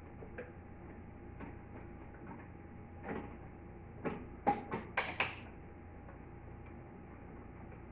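A quick cluster of five or six sharp clicks and knocks about halfway through, over a steady low hum.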